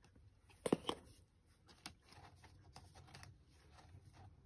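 Soft rustling and light tapping of cardboard album packaging and photocards being handled, with a couple of sharper knocks about a second in.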